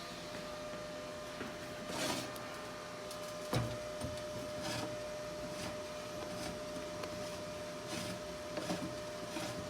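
A steady mechanical hum with a low hiss, broken by scattered clicks and light knocks, one sharper knock about three and a half seconds in.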